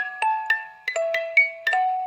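Music box playing a gentle melody: single high, bell-like notes plucked a few times a second, each ringing on and fading, sometimes two at once.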